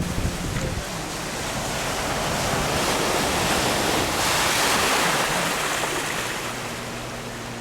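Heavy rain pouring down in a thunderstorm, driven by strong wind gusts, as a dense rushing hiss. It swells to its loudest about halfway through, then eases off.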